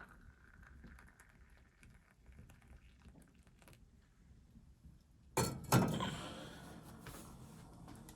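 Faint scattered clicks, then about five seconds in two sharp knocks a third of a second apart, the second louder and trailing off into a rustling clatter.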